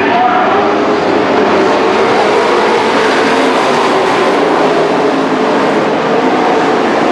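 A field of dirt-track race trucks racing, several engines running hard at once in a loud, steady drone with no let-up.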